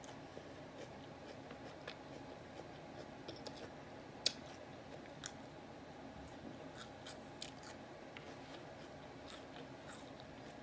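Faint eating sounds: a person chewing, with scattered small clicks and ticks, one sharper click about four seconds in, over a steady low room hum.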